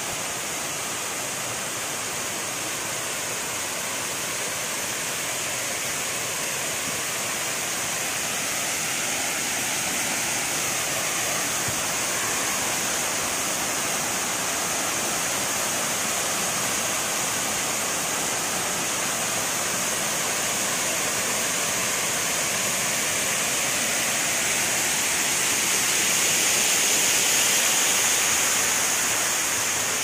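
Waterfall: water cascading down tiered rock steps, a steady rushing hiss that grows a little louder near the end.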